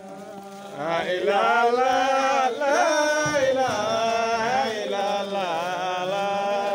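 Men's voices chanting in long, held notes that glide up and down in pitch, getting loud about a second in.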